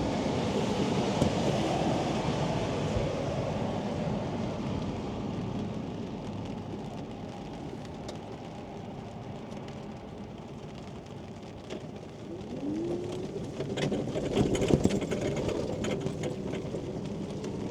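Steady wet traffic-and-rain noise heard while riding a mobility scooter in the rain, louder at first and easing off. About twelve seconds in, a short rising tone, then a run of clicks and rattles.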